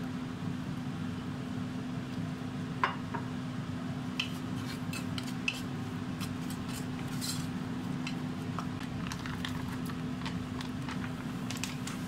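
Kitchen utensils clicking and clinking against dishes: one sharper knock about three seconds in, then a run of light clicks, over a steady low hum.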